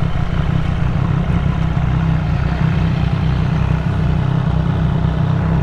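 Triumph inline-triple motorcycle engine running at steady revs under way, with an even rush of wind and road noise over it.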